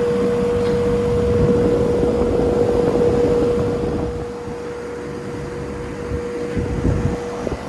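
2017 Ameristar 2-ton air-conditioner condenser running: its Copeland scroll compressor holds a steady hum under the rush of the condenser fan's air. The rushing eases about halfway through.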